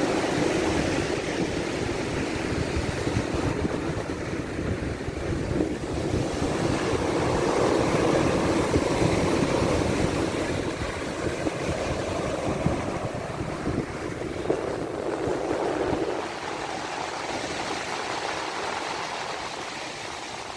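Black Sea waves washing onto the shore in slow swells, with wind rumbling on the microphone. The low rumble drops away about sixteen seconds in.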